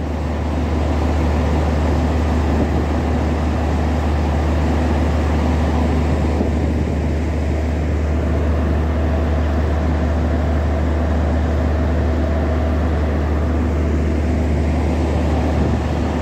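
Diesel generator sets in a Garib Rath Express's power car running steadily while the train stands, a deep constant hum with a steady drone over it.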